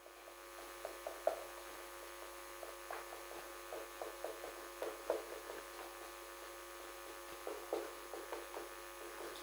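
Marker pen writing on a whiteboard: scattered faint short strokes and taps over a steady electrical hum.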